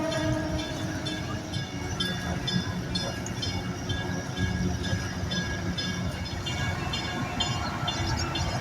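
Train rolling past with a steady low rumble and scattered clicks of the wheels on the track.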